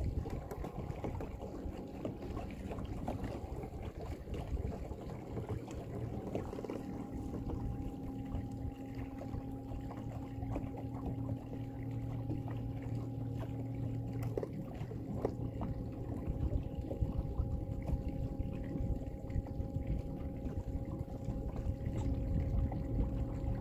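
Water sloshing against a small fishing boat, with a low rumble underneath. About six seconds in, a steady motor hum made of a few even tones starts and keeps going, and a couple of light knocks come near the middle.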